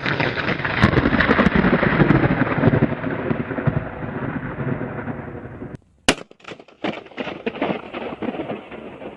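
A sudden, loud crackling rumble that fades slowly over about five seconds, then cuts off abruptly, followed by a few sharp cracks and a weaker rumble.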